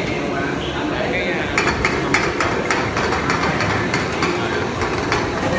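A metal utensil striking and scraping a wok during stir-frying, sharp clacks about three times a second, over a steady rushing kitchen background.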